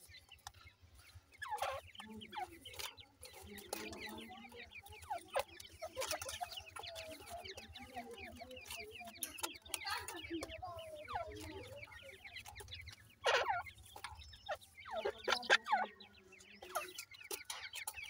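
Francolin hen clucking softly to her chicks, with the chicks' many short, high, falling peeps throughout; a few louder peeps come in the last third.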